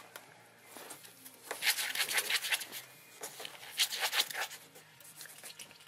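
Ferret scrabbling inside a long cardboard box, its claws scratching and scuffing on the cardboard in short, irregular bursts.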